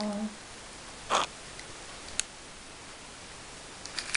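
Mostly quiet room tone, a faint steady hiss, after a woman's held voice trails off at the very start. There is one short breathy sound about a second in and a single light click about two seconds in.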